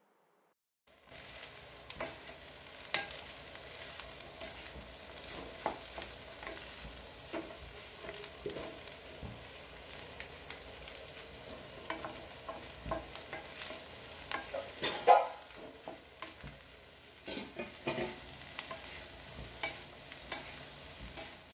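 Chopped yam flower frying in masala in a pan, stirred steadily with a spoon that scrapes and knocks against the pan over a low sizzle, starting about a second in, with one louder knock about two-thirds of the way through.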